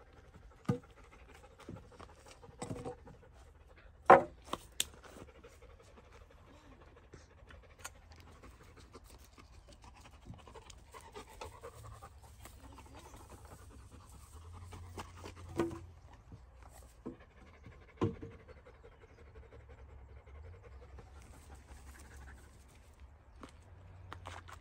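Wooden boards being handled and set down: a few scattered sharp knocks, the loudest about four seconds in and two more a second and a half apart near the middle, over a faint steady background.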